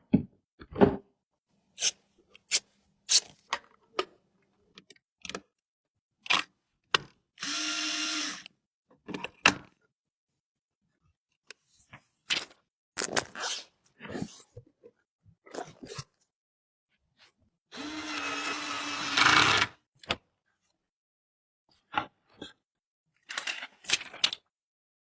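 Clicks, taps and knocks of computer parts being handled and fitted, with two short whirring runs of an electric screwdriver, the second one longer and louder.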